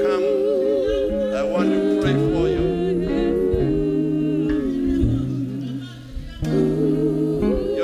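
Live worship music from a church band: a slow melody sung in long, wavering held notes over keyboard and stepping bass guitar notes. The music dips briefly about six seconds in.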